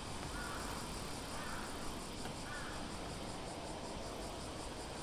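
Steady outdoor street ambience with wind and rolling noise. Three short faint chirps come in the first three seconds, over a fast, faint high pulsing like insects.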